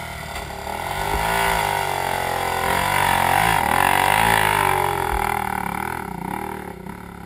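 Off-road motorcycle engine revving hard under load on a steep rocky hill climb, the revs rising and falling several times with a sharp dip about three and a half seconds in, then easing off and fading toward the end.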